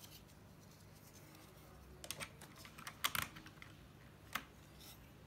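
Plastic keycaps being pressed onto a mechanical keyboard's Cherry switches: a few scattered clicks starting about two seconds in, the loudest about three seconds in.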